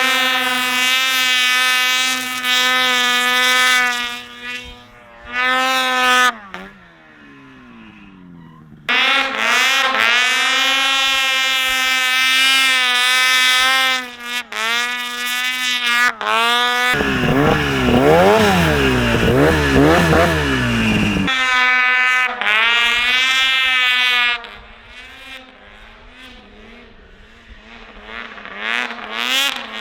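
Snowmobile engines running hard at high revs, pitch swinging up and down as the throttle is worked, with several abrupt cuts between shots. From about 17 to 21 seconds in, a harsher, wavering engine sound takes over.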